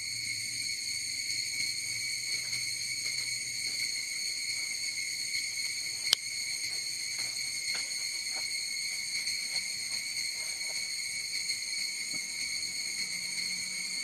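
Insects droning steadily on one high, unbroken tone. A single sharp click comes about six seconds in, and a few faint ticks follow.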